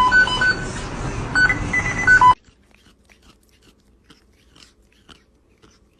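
Dance-pop music with repeated electronic beeping tones, cut off abruptly about two seconds in. Faint scattered clicks and crunches follow.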